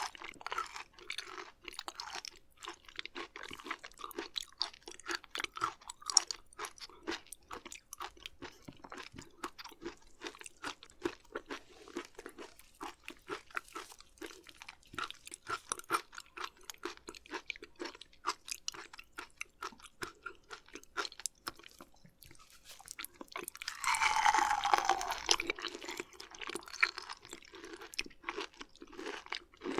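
Close-miked chewing of raw beef liver and beef omasum: wet, irregular mouth clicks and crunching throughout. A louder, wetter stretch comes about three-quarters of the way in.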